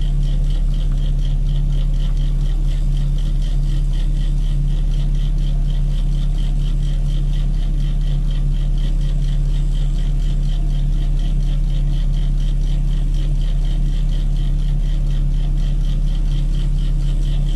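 Heavy mobile crane's diesel engine running steadily with a constant low hum.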